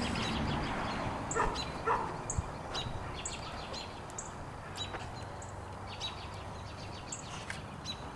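A dog barks twice in quick succession about a second and a half in, while small birds chirp repeatedly.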